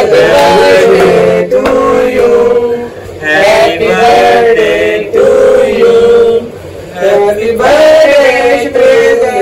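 Male singing: a slow melody of held notes in phrases of a few seconds, with short breaks about three seconds and seven seconds in.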